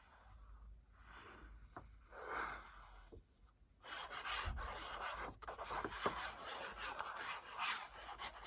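Paper and card being handled and rubbed by hand, soft at first and then louder, scratchy rubbing with a few light clicks from about halfway through.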